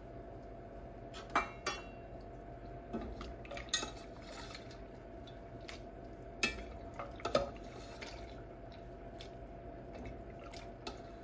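Metal slotted spatula clinking against a stainless saucepan and a clay baking dish as hot penne is scooped out and dropped in, with a wet dripping of pasta water. The sharp clinks come a handful of times, spread apart, over a faint steady hum.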